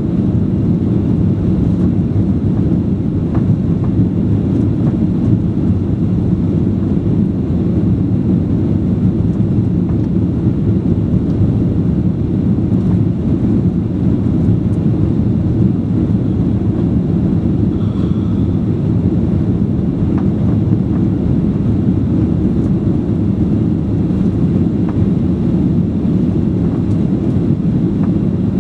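Steady drone inside the passenger cabin of a Boeing 737-800 in flight, its two CFM56 turbofan engines and the airflow giving an even, deep noise that holds at a constant level.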